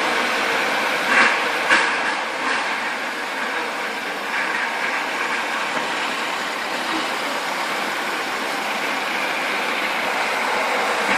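Steady rushing noise of passing vehicles, with a few sharp clacks in the first three seconds.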